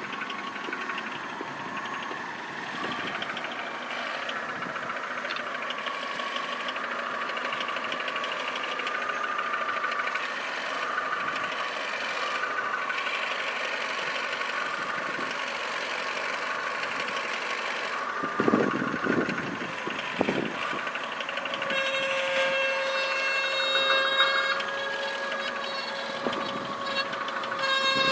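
2003 Skoda Fabia Mk1 running with a continuous buzzing rattle, like a rattling insect trapped inside the car, which the owner guesses comes from a worn clutch. A few heavier thumps come about two thirds of the way in, and near the end a steady whining tone joins the rattle.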